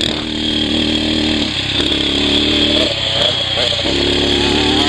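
Kawasaki KLX250's single-cylinder four-stroke engine running hard on the throttle. Its note changes about a second and a half in, breaks up around three seconds as the throttle comes off, and pulls strongly again near the end.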